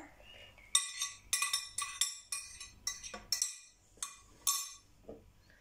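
A serving spoon knocking against a mixing bowl while shredded chicken is added. It makes about a dozen sharp, irregular clinks, each with a short ring.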